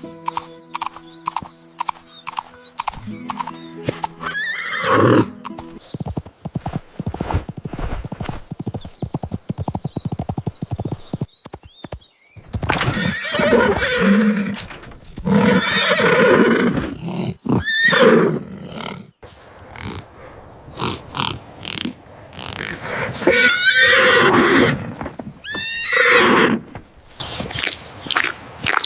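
Horse whinnying several times, with a steady clip-clop of hooves and music underneath near the start.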